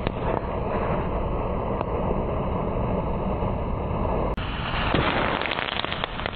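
Steady, noisy vehicle sound of a model tank running. The sound changes abruptly about four seconds in.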